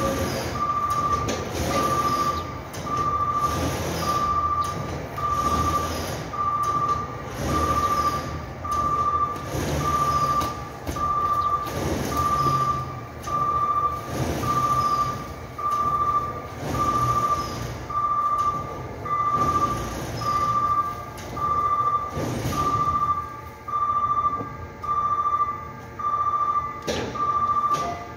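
Electronic warning beeper sounding a steady single-pitched beep about once a second, over pulsing factory machinery noise; the beeping stops near the end.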